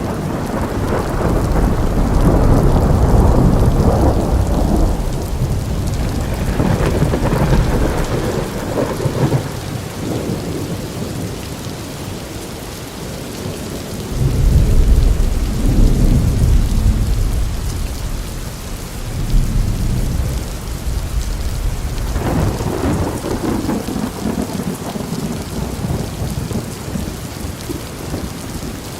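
Steady rain with rolling thunder: a continuous hiss of rainfall, with several long, low rumbles of thunder that swell and fade, the strongest in the first few seconds and about halfway through.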